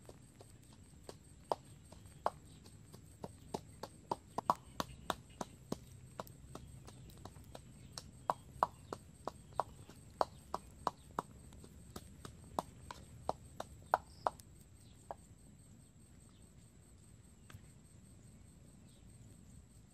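Small wood fire crackling: irregular sharp snaps, up to two or three a second, thinning out after about fifteen seconds.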